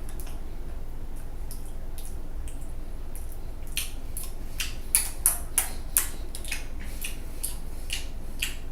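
Person chewing dry French Toast Crunch cereal pieces: irregular crisp crunches, a few faint ones at first, then many in quick succession from about halfway through.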